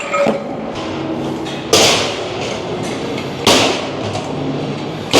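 Gym exercise equipment being worked in a steady rhythm: three sudden whooshing thuds about a second and a half to two seconds apart, each fading quickly.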